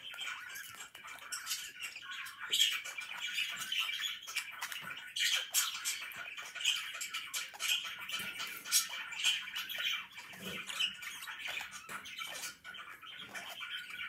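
Pet budgerigars chirping and chattering continuously, a rapid stream of short, sharp notes.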